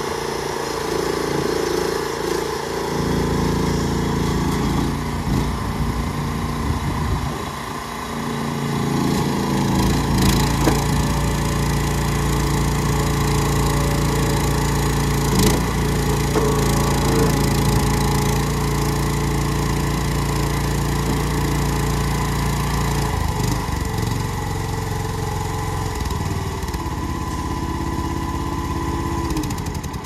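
Small engine of an AGROTK YSRT14 mini tracked skid steer running while the machine is driven, its note rising and falling with throttle and load. It speeds up and gets louder about eight seconds in, with a couple of sharp knocks along the way.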